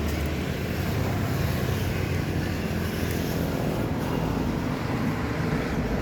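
Steady engine rumble of a motor vehicle running, a low even drone under a wash of outdoor noise.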